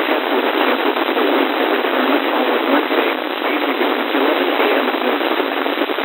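Steady static hiss and crackle from a weather radio receiver tuned to a weak NOAA Weather Radio signal. The noise drowns the broadcast voice.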